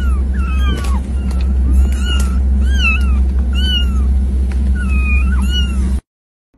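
A litter of kittens mewing, about ten high-pitched meows that each rise and fall, some overlapping, over the steady low rumble of a car's cabin. It all cuts off abruptly about six seconds in.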